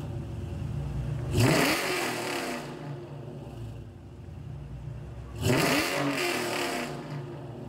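Car engine idling, revved twice with quick throttle blips, one about a second and a half in and another about five and a half seconds in; each time the pitch climbs sharply and falls back to idle. It sounds inside a concrete parking garage.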